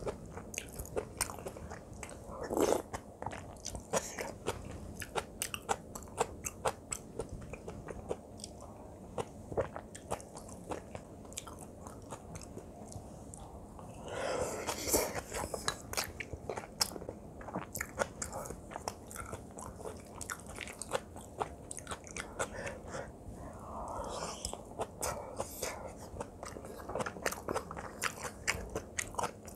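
Close-up chewing of spicy kimchi fried rice and crunchy kimchi: a steady run of small wet mouth clicks and crunches, with a louder noisy stretch about halfway through.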